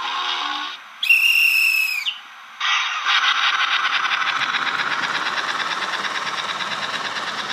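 A steam-locomotive whistle blows once for about a second. After a short pause a toy train starts off and runs along the track with a steady, fast, even clatter.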